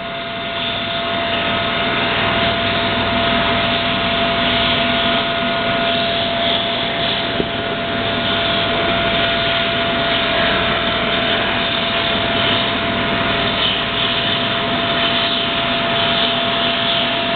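CNC milling machine running and cutting: a steady machine noise with a constant whine held throughout, rising in level over the first couple of seconds.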